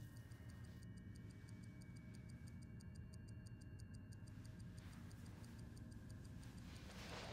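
Faint, rapid, evenly spaced ticking, about ten ticks a second, over a low steady hum. Soft breathy noise rises near the end.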